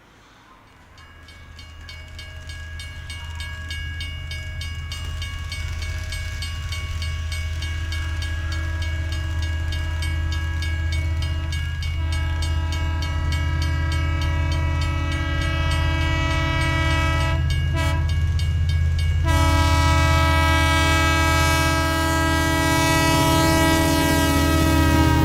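Train sound: a low rumble that grows steadily louder, with sustained horn-like tones over it that change pitch about halfway through and again near the end.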